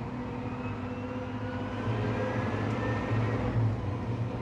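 Valtra N174 Direct tractor pulling away from a standstill with a square baler in tow: a steady engine drone, with a faint whine rising slowly in pitch as it gathers speed.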